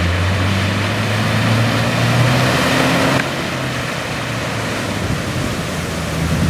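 Off-road 4x4's engine running under load, its pitch slowly rising, with a loud steady rushing noise over it that cuts off suddenly about three seconds in; the engine carries on more quietly after that.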